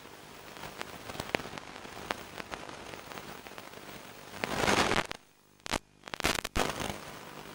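Hiss and crackle from a model glider's analog FPV radio link, with scattered clicks. About four and a half seconds in a loud burst of static comes through, then the sound cuts out and back several times as the signal breaks up.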